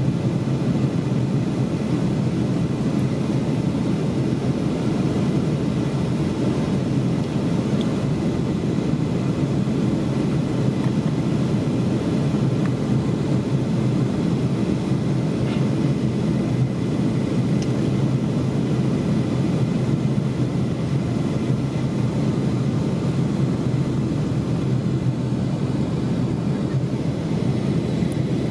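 Steady cabin noise of a Boeing 757 on final approach, airflow and its Rolls-Royce RB211 turbofan engines heard from inside the cabin, with a faint steady whine above the deep rush.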